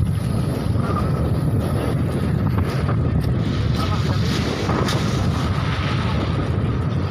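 Wind buffeting the microphone of a phone held by a moving cyclist: a steady, loud low rumble.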